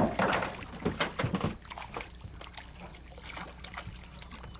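Water splashing and sloshing as a hooked striped bass thrashes at the surface. It is loudest in the first second and a half, then fainter and more broken.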